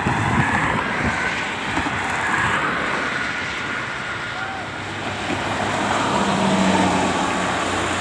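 Steady highway traffic noise with a coach bus approaching on the toll road, its engine coming up under the road noise near the end.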